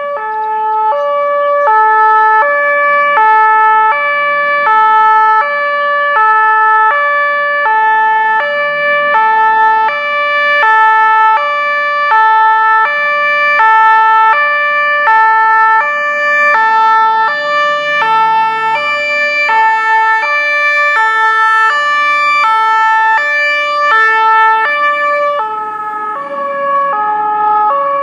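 Two-tone German fire-engine siren (Martinshorn) on an LF 8/6 fire truck running on an emergency call. It alternates steadily between a lower and a higher note, each held about half a second, over faint engine noise. The pitch drops slightly near the end.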